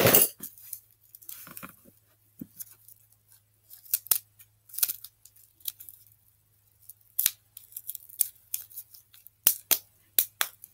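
Scissors snipping at something small and stiff: an irregular series of short, sharp snips and clicks, about a dozen.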